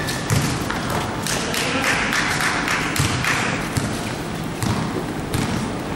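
Scattered thuds and taps on a wooden gym floor during a basketball game: players' running footsteps and the ball hitting the court.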